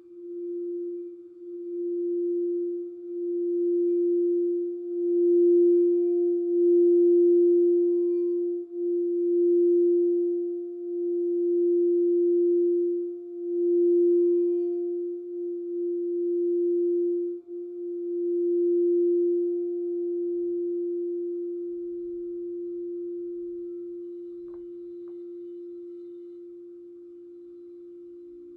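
Crystal singing bowl sounding one steady low note with a faint higher overtone, its loudness swelling and pulsing, then slowly dying away over the last several seconds.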